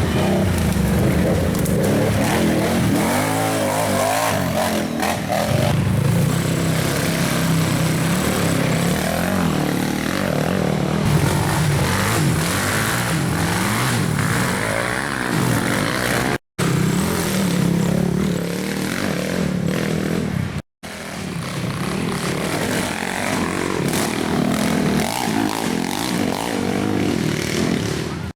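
Racing ATV engines revving hard, the pitch rising and falling as riders accelerate and back off through the course. The sound drops out for an instant twice.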